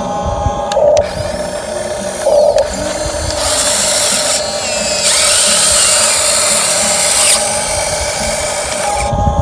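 Small electric motors of a toy RC excavator whining like a drill, with a steady hum throughout and a louder, brighter, hissier stretch in the middle.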